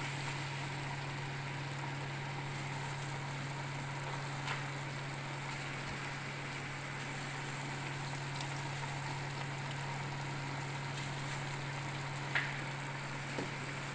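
Lamb, onion and tomato sizzling as they fry in a metal pot on a gas stove, over a steady low mechanical hum, with a few faint ticks.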